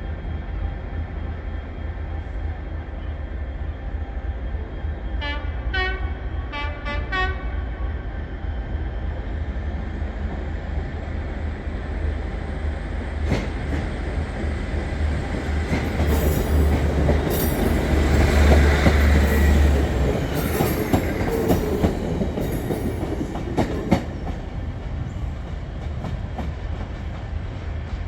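Train horn sounded in a few short blasts about five seconds in, followed by a train passing, loudest around the middle, with sharp wheel clicks over the rail joints.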